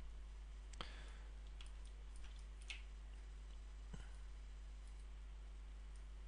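A few faint computer mouse clicks, about a second in, near three seconds and at four seconds, over a steady low hum.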